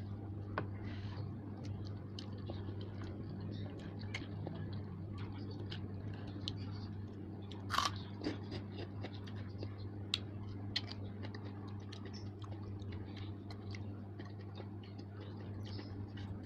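Close-miked chewing and biting of a person eating noodles: many small wet clicks and mouth sounds, with one louder sharp smack about eight seconds in, over a steady low hum.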